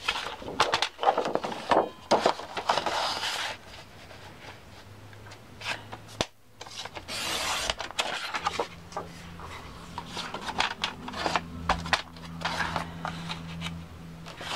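Sheet of paper rubbed and shifted on a tabletop and paper trimmer, then the Firbon sliding-blade paper trimmer cutting it with one short swish about seven seconds in, followed by lighter paper rustles and taps.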